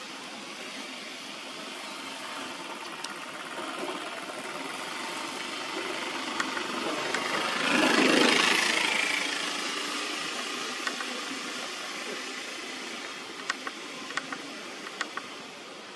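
Steady rushing background noise that swells to a peak about halfway through and slowly fades, with a few sharp clicks near the end.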